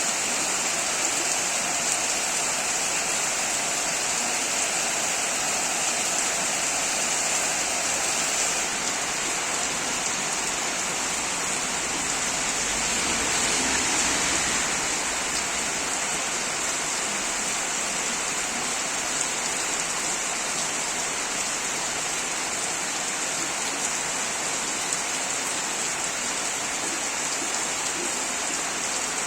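Steady rain falling, an even unbroken hiss that swells slightly about halfway through.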